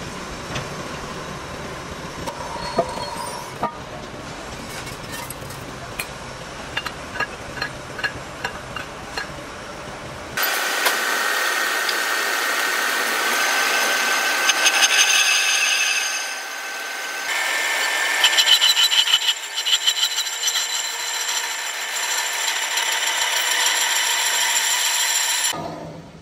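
Metalworking noise: scattered sharp taps and knocks, then, from about 10 seconds in, a power tool running with a steady high-pitched whine and bursts of rapid rattling, stopping abruptly near the end.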